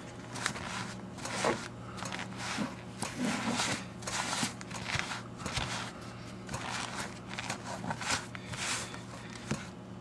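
Foam applicator pad rubbing conditioner into a leather shift boot, with the boot handled on a cloth towel: soft, irregular swishing and rubbing strokes, roughly one or two a second, over a steady low hum.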